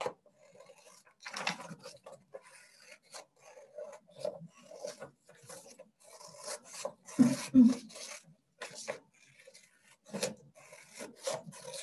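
Scissors cutting around a paper drawing, a string of short, irregular snips as the paper is turned to follow a circle.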